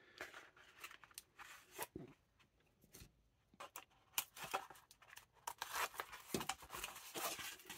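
Faint handling of a cardboard tray and the tape on it: a few small clicks and scrapes at first, then denser clicking, rustling and snipping from about four seconds in as the tape is cut with a small cutter.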